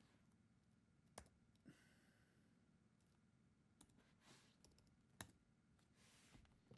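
Near silence with a handful of faint computer mouse clicks.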